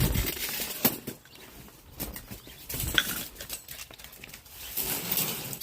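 A Shiba Inu and a kitten scuffling in play: scattered light taps, bumps and rustling.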